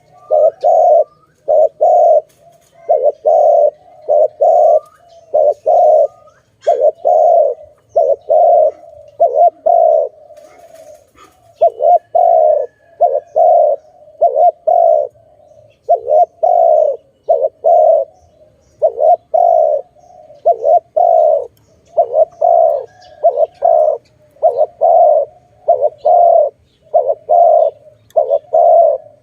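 Spotted dove cooing loudly and repeatedly, in phrases of several low coo notes separated by short pauses, with a longer lull about ten seconds in.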